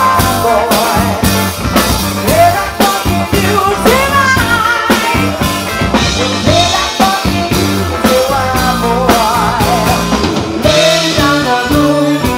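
Live rock band playing: a woman singing into a microphone over electric bass guitar and a drum kit keeping a steady beat.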